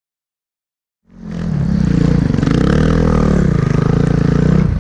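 Silence for about a second, then a snowbike's engine (a dirt bike fitted with a Timbersled track kit) comes in and runs loud, revving up and down.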